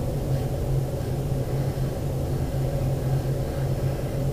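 Steady low hum with a faint rumble underneath, the room's constant background noise, with no clear change.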